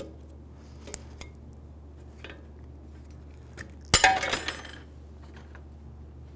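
A steel snap ring is worked out of the front wheel bearing bore of a steering knuckle with snap ring pliers. A few light metallic clicks come first, then about four seconds in a sharp clink as the ring snaps free, ringing briefly.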